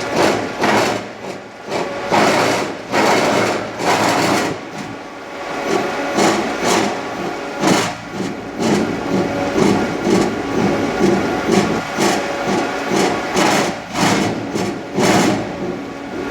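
TKS Color Top 5000 machine running with a fast, rhythmic mechanical clatter and uneven louder surges every second or so, which the owner puts down to a bad motor controller.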